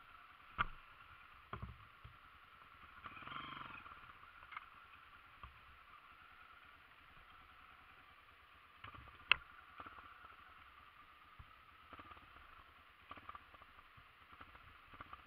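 Honda CRF dirt bike's single-cylinder four-stroke engine running, heard faint and muffled through the camera, with a few sharp knocks, the loudest about nine seconds in.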